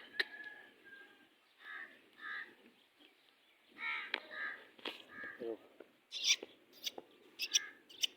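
Birds calling: short, harsh calls in a pair and then a run of three, followed by several sharp, clicky calls near the end.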